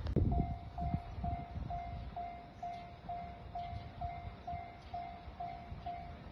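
Japanese railway level-crossing warning bell ringing, an electronic ding repeating about twice a second, with a low rumble underneath. The bell signals that a train is approaching the crossing.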